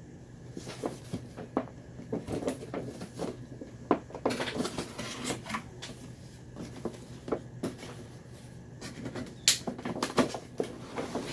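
Cardboard boxes and packaging being handled and opened by hand: irregular knocks, scrapes and crinkling, busiest about four seconds in and again near the end, where a sharp click is the loudest sound.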